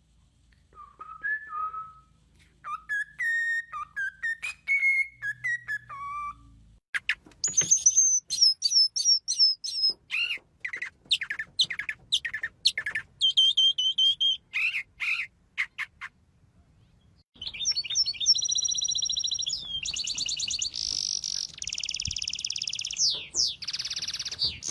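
A songbird singing a long, varied song: short whistled notes at first, then rapid high chirps and trills, a brief pause about two-thirds of the way through, and fast rolling trills near the end.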